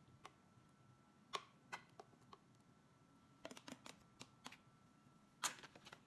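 Metal spoon tapping and scraping against plastic food containers: a scattering of light clicks and taps, the sharpest about a second and a half in and near the end.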